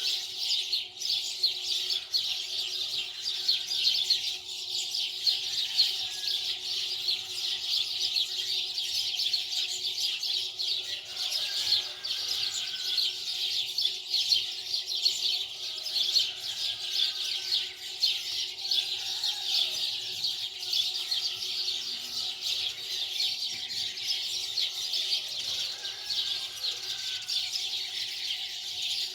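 Dense, continuous chorus of many small birds chirping rapidly, with a faint steady hum underneath.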